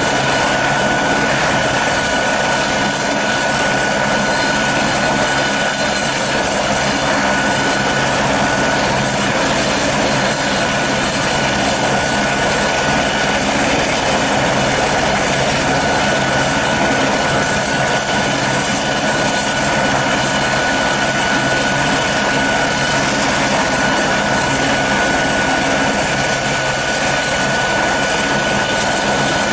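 Airbus Helicopters AS355N twin-turbine helicopter running on the ground with its rotors turning: a steady, unchanging turbine whine with two high held tones over the beat and rush of the rotor blades.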